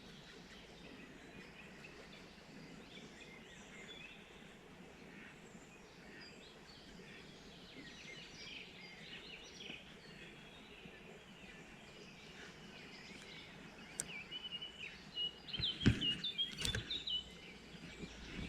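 Small birds chirping now and then over a faint steady outdoor background. Near the end, a sharp click is followed by a couple of seconds of louder knocks and handling noise mixed with quick chirps.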